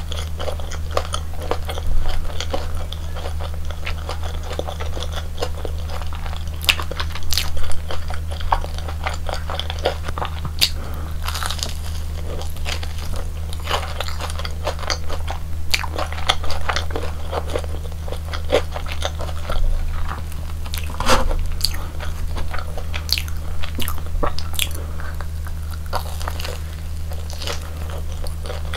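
Close-miked eating: bites into the crispy fried batter of a Korean corn dog, with irregular crunches and chewing throughout. A steady low electrical hum runs underneath.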